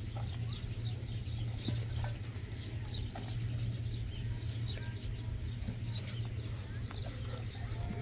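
Small birds chirping with many short, high, falling notes, over a steady low hum, with a few faint knocks.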